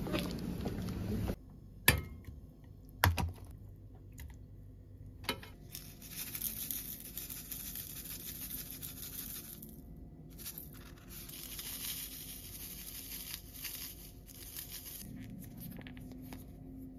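Rustling and tearing of seasoning packets being opened and emptied over kimchi in a saucepan, with a few sharp clicks near the start. Brief outdoor street noise cuts off just after the start.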